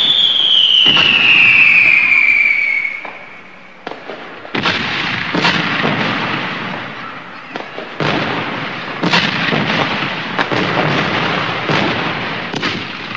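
Aerial fireworks display: a high whistle falling in pitch near the start, then from about four seconds in a dense run of sharp bangs and crackling bursts.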